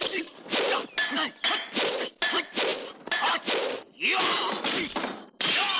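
Kung fu film fight sound effects: a rapid run of about a dozen sharp whacks and clashes of wooden poles, roughly two a second, with a longer clash about four seconds in. Fighters' shouts are mixed in.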